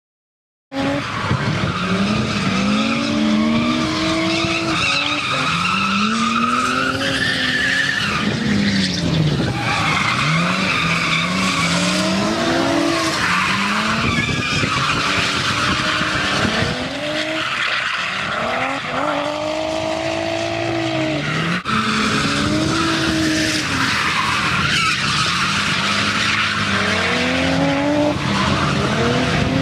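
A 600-hp drift car's engine revving hard, its pitch rising and falling again and again through each slide, with tyres squealing and scrubbing under it. It starts abruptly a moment in.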